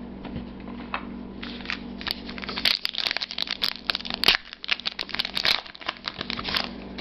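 Allen & Ginter baseball card pack wrapper crinkling and tearing as it is ripped open by hand. A few light rustles at first, then a dense run of crackles from about two and a half seconds in until near the end.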